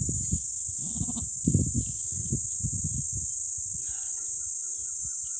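Steady high chirring of crickets, with low rustling and handling thumps in the first two seconds as a newborn goat kid is handled in the grass. A faint wavering call comes near the end.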